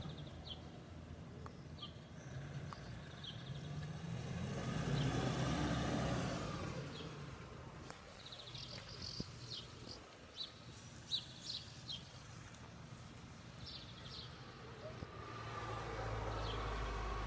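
A car passes by, swelling and fading away a few seconds in. Small birds give short high chirps through the middle, and a low rumble builds near the end.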